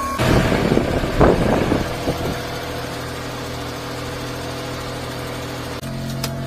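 Daihatsu Hijet mini truck's carbureted engine with an AMR300 supercharger running, rough and louder for the first two seconds, then settling into a steady idle. About six seconds in, the note shifts to a deeper hum. The owner reckons it is running lean at part throttle after a main-jet change.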